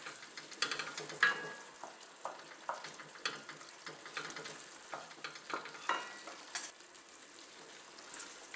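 Wooden spatula stirring a thick pav bhaji vegetable mash in an enamelled pot, with irregular scrapes and taps against the pot, over a steady sizzle as the butter is stirred in.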